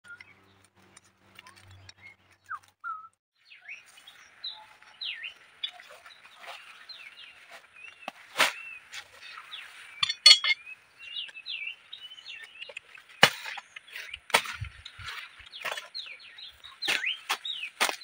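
Many small birds chirping in short, overlapping calls, starting about three and a half seconds in, with a few sharp clicks or snaps scattered through.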